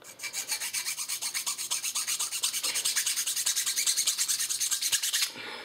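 A large hand file rasping on a cut-down airsoft gun part in quick, even strokes, several a second. The filing stops about five seconds in.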